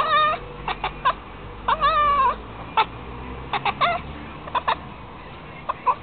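Domestic cat chirping and chattering in a quick run of short, pitched chirps, with a longer wavering call at the start and another about two seconds in: the chatter a cat makes while watching birds.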